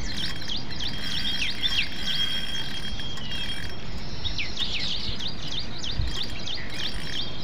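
Birds chirping in quick, repeated short calls that sweep downward, over a steady outdoor noise bed, with a thin steady high tone that stops about halfway through.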